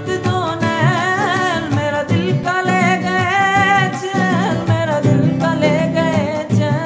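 A man singing long, wavering, ornamented notes with vibrato, accompanied by a strummed acoustic guitar.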